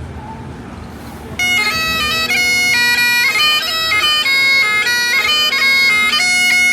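Highland bagpipes playing a tune over a steady drone, the chanter's melody starting loudly about a second and a half in.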